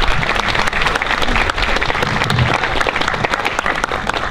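Audience applauding steadily: dense clapping from many hands.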